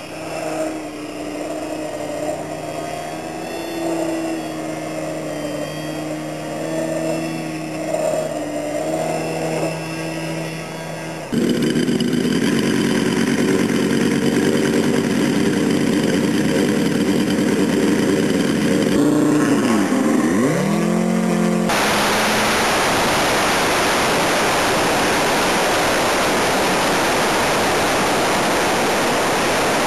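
Radio-controlled model airplane engines. First a hovering aerobatic model's engine wavers in pitch as the throttle works. About eleven seconds in it gives way to a louder, steadier engine on a P-47 scale model sitting on the grass, which drops in pitch and climbs back near twenty seconds. Then a steady rushing roar of engine and wind noise takes over, heard through an onboard camera in flight.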